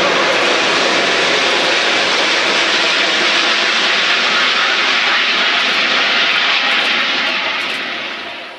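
Airbus A380's four turbofan engines, a loud and steady jet noise during the take-off and flyby. The noise fades near the end, the high end dropping away first.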